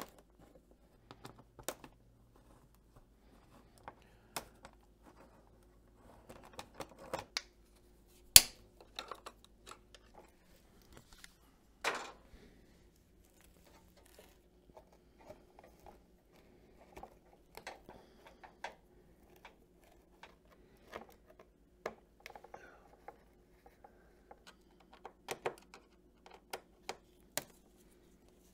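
Small Allen key clicking and ticking against the screws and plastic lower fairing of a Ducati Panigale V4 Speciale as the screws are backed out, in scattered, irregular taps with a couple of sharper knocks, over a faint steady hum.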